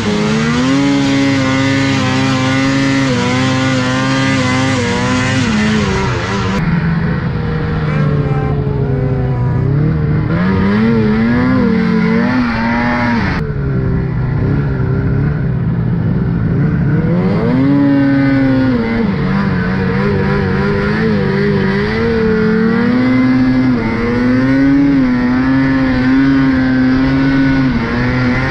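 2007 Ski-Doo Summit 800 Rev's two-stroke twin engine, fitted with an RK Tek 827 big-bore kit, running hard under throttle through deep powder. Its revs hold high, fall off twice and climb back each time as the throttle is worked.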